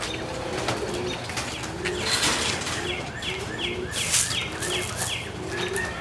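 Young homing pigeons cooing in the loft, with short bursts of wing flapping as birds take off. In the middle, a quick run of about seven high, falling chirps from another bird.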